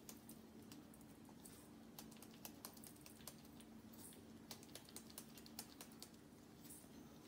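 Faint, irregular light clicks and ticks of a spoon and dried rosemary being tipped from a small glass spice jar into a stainless-steel bowl, over a low steady hum.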